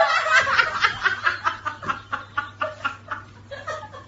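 A person laughing: a quick run of short, even laughs, about five a second, fading out near the end.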